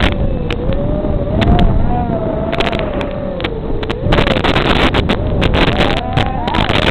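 Small racing quadcopter's electric motors whining, the pitch rising and falling as the throttle changes, over rushing wind noise and crackling clicks.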